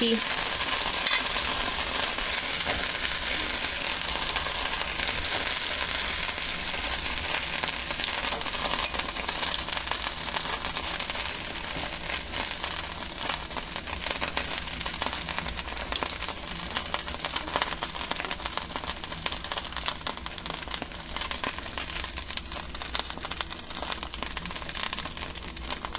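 Potstickers frying in a skillet: a steady sizzle with fine crackling that eases off slowly.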